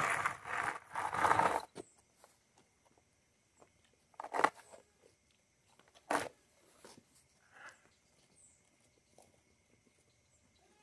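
Skateboard wheels rolling on a rough concrete path under a small goat standing on the deck, stopping after about a second and a half. Then two sharp knocks a couple of seconds apart.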